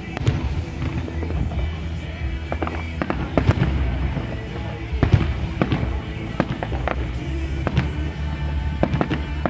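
Aerial firework shells bursting overhead, an irregular string of sharp bangs over a steady low rumble.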